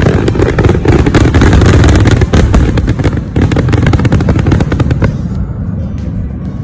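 A barrage of fireworks: a dense, rapid crackle of many small pops over a heavy low rumble, loud, thinning out about five seconds in.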